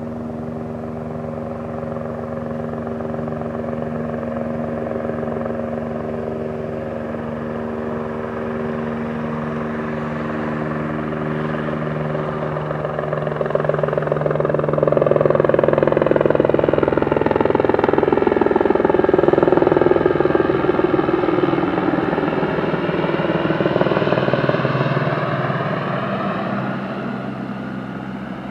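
Aérospatiale AS 350 B Ecureuil single-turbine helicopter flying past: the rotor and turbine drone grows louder, peaks about halfway through with its pitch falling as it passes close, then eases off.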